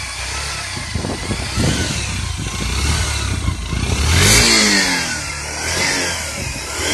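Yamaha Saluto 125's single-cylinder four-stroke engine heard at the exhaust muffler, running and revved up and down several times, the biggest rev about four seconds in. The owner calls the exhaust note very good and fully smooth.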